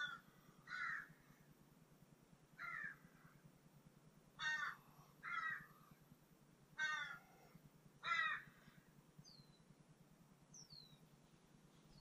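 A bird calling outdoors: seven short calls spaced a second or two apart, then two faint, thin falling whistles near the end.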